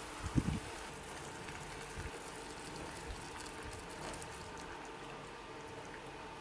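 A pot of liquid bubbling steadily on the stove, with a few low knocks, the loudest about half a second in and fainter ones around two and three seconds in.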